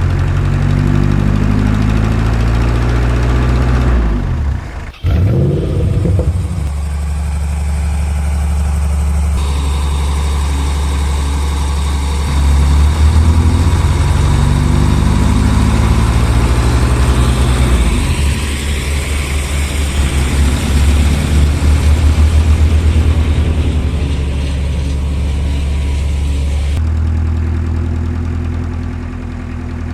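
Low, steady engine rumble of heavy construction machinery, idling and rising in places, from scale RC excavators and dump trucks at work. The sound shifts abruptly several times, with a brief dropout about five seconds in.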